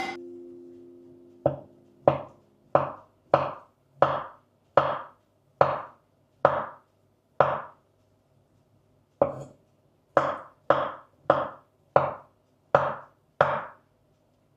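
Knife chopping on a cutting board: about sixteen single strokes, roughly one and a half a second, with a short pause midway.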